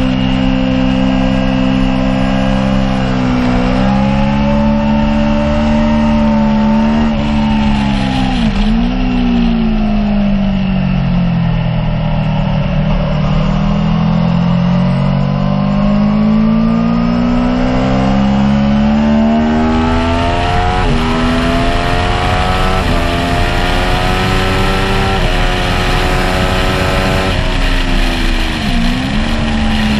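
Aprilia Tuono V4 1100 Factory's V4 engine running under the rider, pitch sinking slowly off the throttle then rising again, with a run of quick upshifts in the second half and a brief dip near the end. Wind noise rushes over it.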